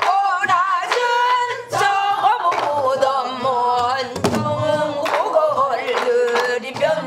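A woman singing a Korean folk song in pansori/namdo minyo style, with long held notes that waver in pitch, accompanied by a few strokes on a buk barrel drum.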